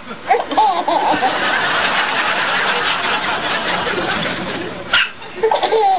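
A baby hiccups once, a short sharp sound about five seconds in, while people laugh and chuckle around her.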